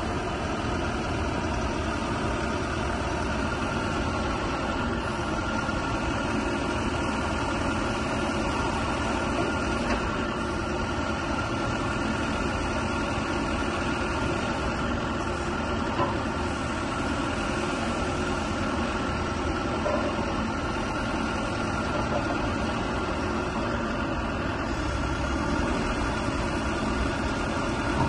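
JCB 3CX Sitemaster Eco backhoe loader's diesel engine idling steadily, with a few faint knocks along the way.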